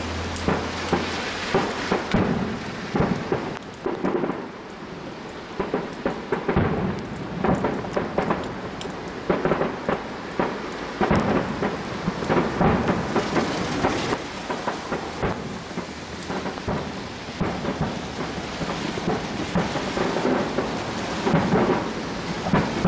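Fireworks display at full barrage: aerial shells bursting one after another in a continuous run of booms, bangs and crackles.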